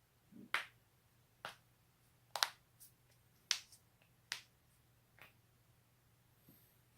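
A person's joints cracking: a run of about nine sharp pops at irregular intervals, some in quick pairs.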